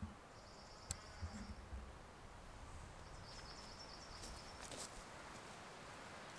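Quiet ambience among pine trees: a faint steady hiss, with two high, thin trills of about a second each and a few soft clicks.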